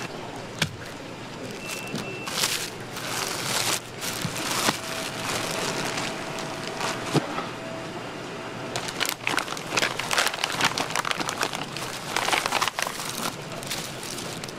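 Crackling and crinkling of cardboard and plastic packaging being handled, with sharp clicks and scrapes, as supplies are unpacked at a food-prep counter; near the end the plastic wrappers of imitation crab sticks are being peeled open. A steady mid-pitched tone sounds for a few seconds in the middle.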